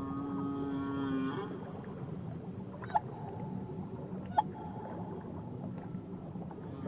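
Whale song: a long, low held call for about a second and a half at the start, then two short, sharp high calls about three and four and a half seconds in, over a steady underwater hiss.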